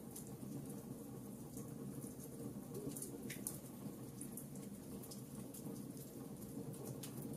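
Log fire crackling in a fireplace: a steady low rush of burning with frequent small, sharp pops and snaps scattered irregularly throughout.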